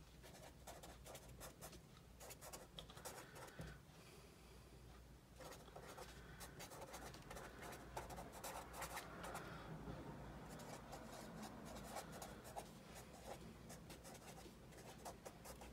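Pen writing on paper in a spiral-bound pad: faint, quick scratching strokes as words are written, with a short pause about four seconds in.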